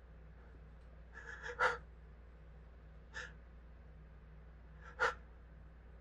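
A person's sneezing fit brought on by sniffing pepper or spice: a run of quick hitching gasps just past a second in, a smaller catch of breath about three seconds in, and a short sharp sneeze at about five seconds.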